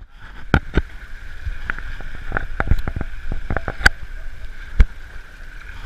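Water splashing and sloshing around a camera at the waterline as an Asian elephant wades up to it. Under a steady hiss there is a string of sharp knocks and taps, the loudest about four and five seconds in.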